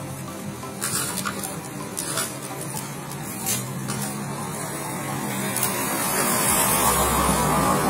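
Light clicks and rustles of plastic bags and handling at a street food stall, then a motor vehicle approaching, its engine and tyre noise growing louder over the last couple of seconds.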